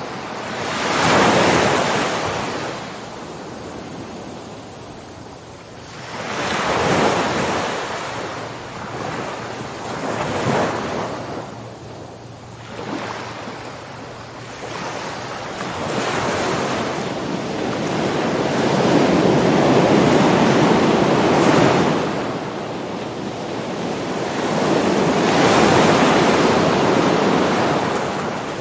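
Ocean waves surging onto the shore and washing back, in slow swells that rise and fade every few seconds, with one longer, heavier surge past the middle.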